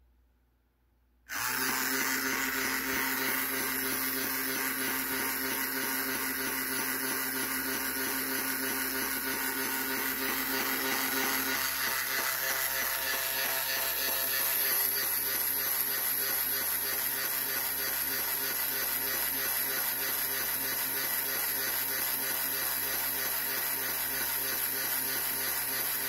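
The small electric motor and gear drive of a Tamiya Flying Seagull display kit switch on abruptly about a second in, then run with a steady whir as they work the flapping wings. One of the lower tones drops out about eleven seconds in.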